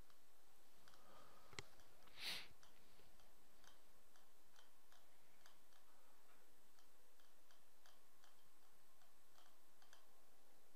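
Faint clicking of a computer mouse as a list is scrolled. There is one sharp click about a second and a half in and a brief soft rustle just after, then a string of light ticks about twice a second.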